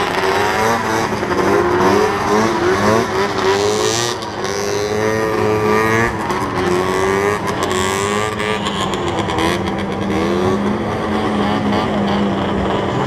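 Several two-stroke snowmobile engines: one runs steadily close by, while others rev up and down in pitch as they race.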